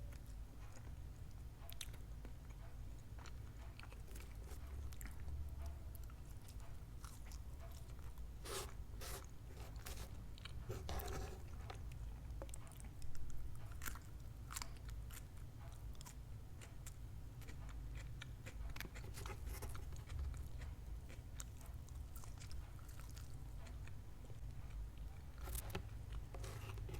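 Close-miked biting and chewing of crunchy food, with irregular crisp crunches that come in clusters over a steady low hum.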